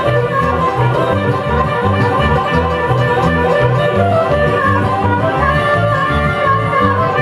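Bluegrass band playing an instrumental passage: plucked strings and fiddle over a steady, regular bass line.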